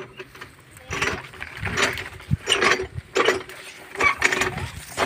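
Small tractor-mounted rotavator tilling between sugarcane rows: the engine and tiller run steadily under irregular crackling and rattling bursts, about one or two a second, as cane leaves and stalks are pushed aside and broken.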